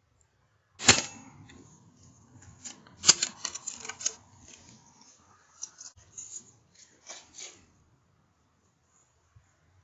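Two sharp shots from a Wolverine R .177 air rifle, about two seconds apart, each followed by a run of smaller clicks and rustles.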